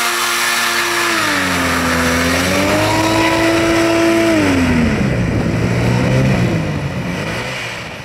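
Scat hovercraft's Rotax 503 twin-cylinder two-stroke engine running hard. Its pitch holds high, dips about a second in, climbs back, then drops a little after four seconds in and wavers lower, fading as the craft moves away near the end.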